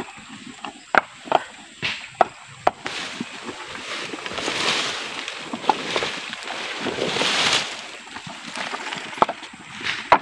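Hard coconut-shell halves knocking sharply against each other as they are handled, several knocks a second apart. In the middle come two long swells of rushing, rustling noise.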